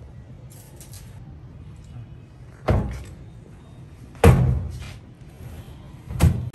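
Three loud knocks, the second the loudest, spaced about one and a half to two seconds apart.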